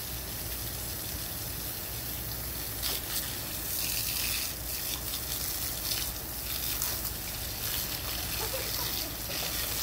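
Steady hiss of running water with a low steady hum beneath it, and a few brief louder splashy moments in the middle.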